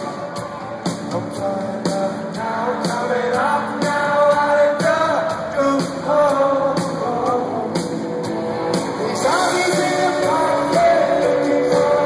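Live rock band playing: a male lead vocal singing over electric guitars, bass and a steady drum beat, heard from among the audience.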